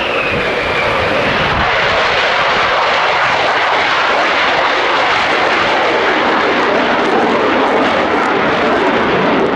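Lockheed Martin F-35A Lightning II's single Pratt & Whitney F135 turbofan: a loud, steady jet roar, with a high whine that fades out in the first second.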